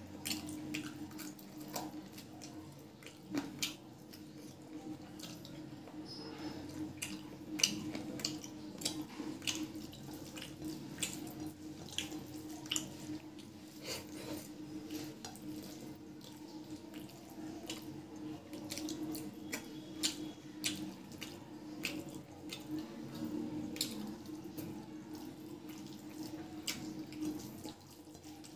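Wet chewing and lip-smacking of a person eating rice and chicken curry by hand, with the squish of fingers mixing the rice on the plate: many short, sharp wet clicks over a steady low hum.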